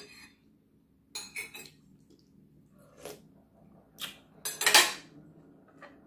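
Metal spoon clinking and scraping against a ceramic soup bowl in short separate strikes: a quick run of three about a second in, single clinks near three and four seconds, then the loudest and longest clatter of spoon and dishes about four and a half seconds in.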